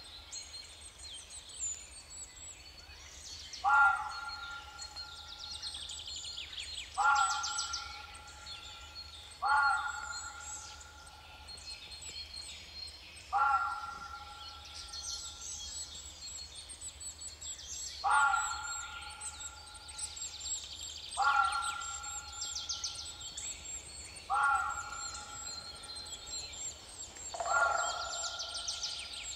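Forest birds calling: one clear call repeats about every three seconds, eight times, each held for about a second and louder than the rest, over fainter high chirps and trills from smaller birds.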